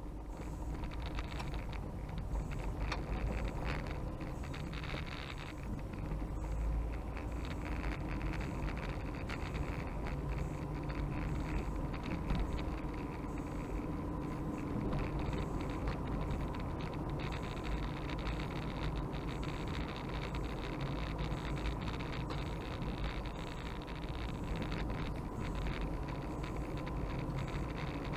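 Car driving on a sealed road, heard from inside the cabin: a steady low engine and tyre rumble that swells in the first second or so as the car pulls away, then holds.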